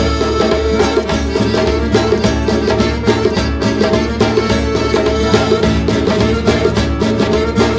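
Instrumental Roma folk dance tune played on accordion, acoustic guitar and djembe, with a steady, lively drum beat under the melody.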